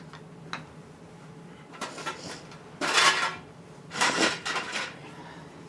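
Sheet-metal drawer parts of an Ikea Helmer cabinet clattering and rattling as they are handled, in three bursts about two, three and four seconds in, the middle one the loudest.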